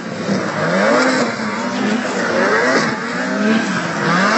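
Snowmobile engine racing along the track, revving up and down several times in rising and falling whines.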